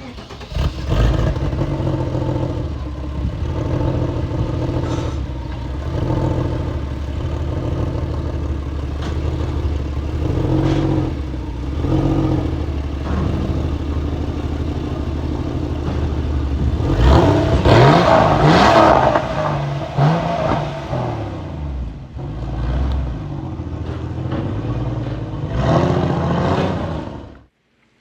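Porsche 993's air-cooled flat-six running through Fister Stage III sport mufflers, with a steady exhaust note and several blips of the throttle. The strongest rev rises and falls about two-thirds of the way through, and the sound cuts off suddenly just before the end.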